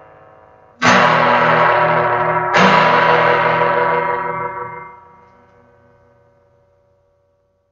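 Closing music: two big electric guitar chords with effects, struck about two seconds apart, each left to ring and slowly fade out to silence.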